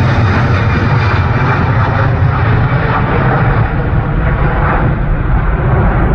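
Jet engines of a Fiji Airways Airbus A330 climbing out directly overhead after takeoff: a loud, steady rumble with a deep low end that grows duller as the aircraft draws away.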